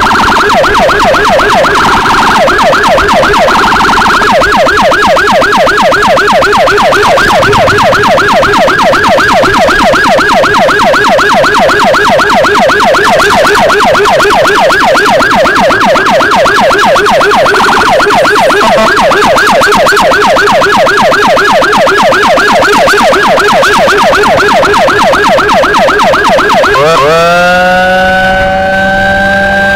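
Electronic emergency siren sounding a fast yelp, very loud. About 27 seconds in it switches to a slow wail that rises and holds high, with a low steady tone underneath.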